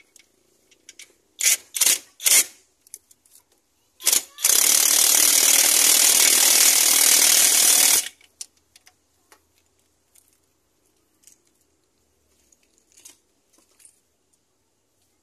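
Ratchet wrench clicking on a bolt at the gearbox: three short bursts, another just after four seconds in, then a loud continuous run of about three and a half seconds that stops abruptly, followed by a few faint ticks.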